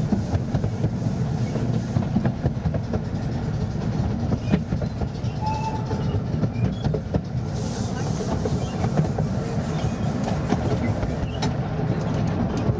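Narrow-gauge railway carriage running along the track, heard from on board: a steady low rumble with scattered clicks of the wheels over the rails.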